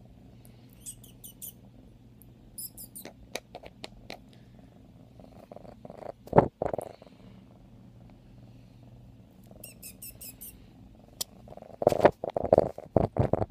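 A 5-month-old F1 Savannah kitten purring steadily as a low hum. Rustling and knocks close to the microphone come as the kitten moves against the camera, loudest about six seconds in and near the end.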